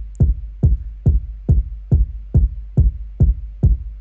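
Electronic kick drum, stacked from several sounds, looping steadily at a bit over two hits a second. Each hit is a short click with a quick downward pitch drop into a long low boom, as the kick is being pitch-shifted.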